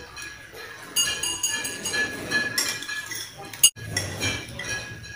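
Metal spoon clinking and scraping against a glass bowl of soup, with ringing clinks from about a second in and the sharpest one about three and a half seconds in.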